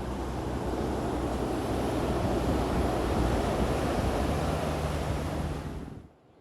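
Air conditioner condensing unit running during a refrigerant pump-down with the high-side valve closed: a steady rushing fan noise over a low compressor hum. The sound cuts off suddenly about six seconds in.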